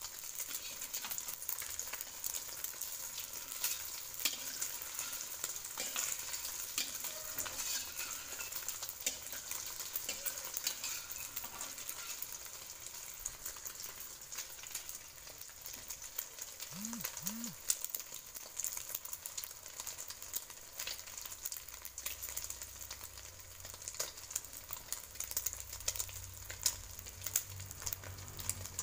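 Beaten egg frying in hot cooking oil in a wok, a steady sizzle full of small crackles and pops. A low hum joins near the end.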